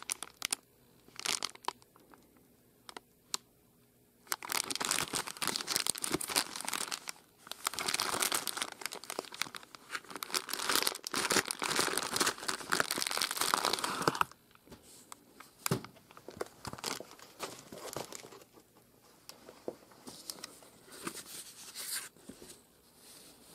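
Clear plastic air-cushion packaging crinkling and rustling as it is handled and a boxed watch is pulled out of it by hand. After a few scattered clicks, dense crinkling starts about four seconds in and stops abruptly near the middle, followed by lighter rustles and a few sharp knocks.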